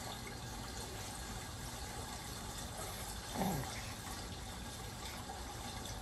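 A young baby makes one short coo that slides down in pitch, about three and a half seconds in, over a steady hiss.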